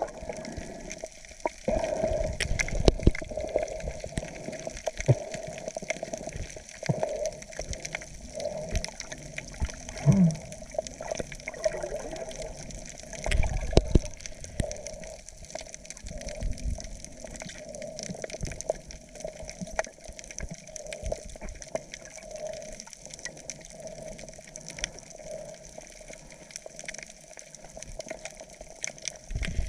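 Water heard through an underwater camera: muffled sloshing and bubbling with a faint steady hum, many sharp clicks, and a few low thumps.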